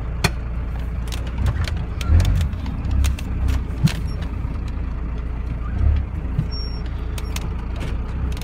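1993 Dodge W250's 5.9-litre Cummins inline-six turbo-diesel running, heard from inside the cab as a steady low rumble that swells briefly a few times. Scattered clicks and light rattles sound over it.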